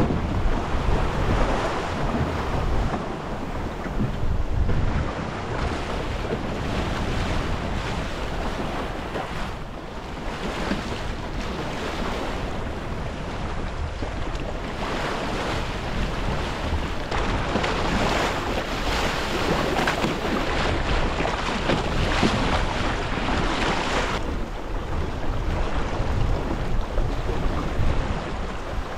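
Wind buffeting the microphone and water rushing along the hull of a small sailing dinghy under way in a fresh breeze, in irregular surges.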